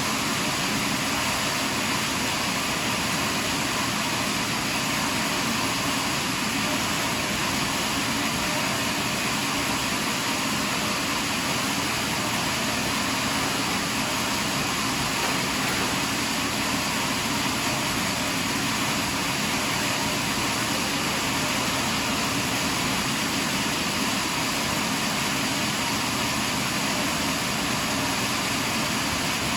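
Portable sawmill running steadily as it cuts along a big pine log, an unbroken, even machine noise with no pauses or changes in pitch.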